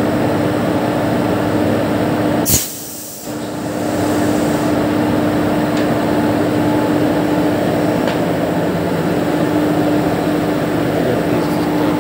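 Idling locomotive with a steady hum over a rushing noise. A sharp click comes about two and a half seconds in, and the sound drops away for under a second before it returns.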